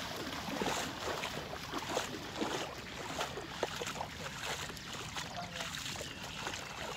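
Water splashing and sloshing in many quick, irregular strokes.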